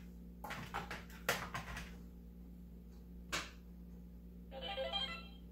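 Hard plastic clicks and clacks from toy blasters being handled, mostly in the first two seconds, with one more click about three seconds in. Near the end an electronic toy gives a short run of beeping tones.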